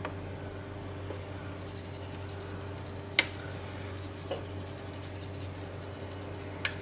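Icing sugar being sifted through a small plastic sieve, fingers tapping it: a faint scratchy patter, with a sharp click about three seconds in and another near the end. A steady low hum runs underneath.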